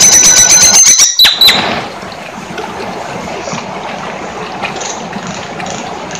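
Nias hill myna giving loud, high whistled calls for about a second and a half, the last one sliding sharply down in pitch, then a steady background hiss.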